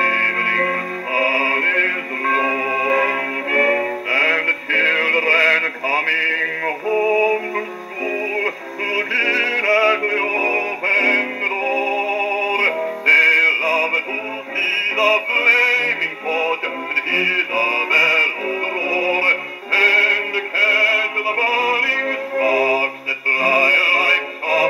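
Wind-up portable gramophone playing a 1932 78 rpm shellac record of a bass singer with male quartet, orchestra and organ through its acoustic soundbox. The sound has no deep bass.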